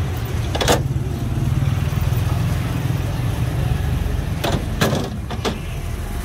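A steady low engine hum, with a few sharp clicks about a second in and three more near the end.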